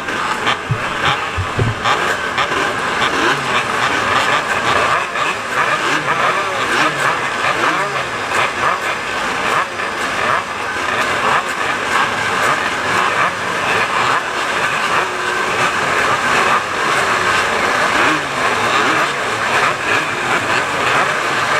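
A pack of 150cc racing motorcycles idling together on a starting grid, their engines revving up and down at overlapping pitches as riders blip the throttles.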